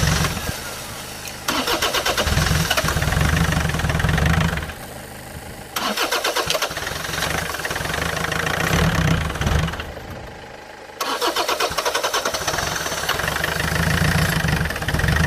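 Land Rover Freelander L-series 2.0 TD diesel cranked over on the starter in four bursts of a few seconds each, with short pauses between, without starting. Air getting into the fuel pipes through a leaking pipe is what keeps it from firing.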